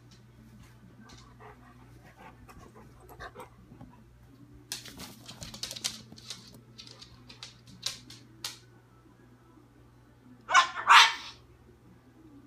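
A dog barks twice in quick succession near the end; these are the loudest sounds. Before them come scattered light clicks and taps of claws on a hardwood floor.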